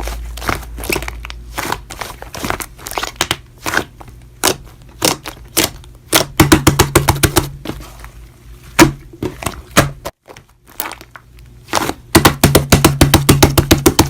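Slime being squeezed and pressed by hand, giving sharp popping clicks, with two fast runs of pops about halfway through and near the end.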